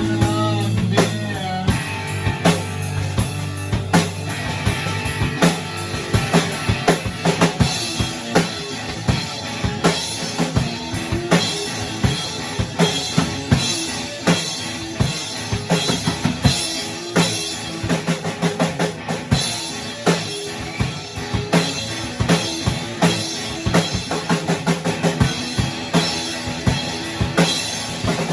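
Rock drum kit playing a busy, fast pattern of bass drum and snare hits. A held chord from the band dies away in the first second or so.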